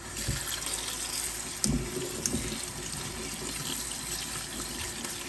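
Cold tap water running steadily into a stainless steel sink over penne in a mesh colander, rinsing the cooked pasta. A few light knocks sound in the first half as the colander is handled.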